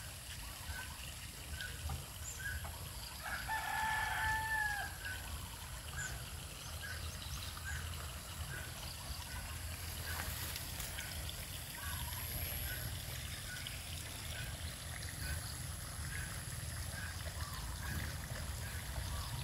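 A rooster crows once, about three seconds in, a call of about a second and a half that drops in pitch at the end. Faint short chirps repeat about twice a second over a steady low rumble.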